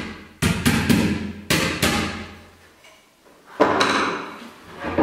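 Hammer tapping wooden dowels into the holes of a flat-pack IKEA MALM nightstand frame: about five sharp blows in the first two seconds, each ringing on briefly. One more knock comes about three and a half seconds in.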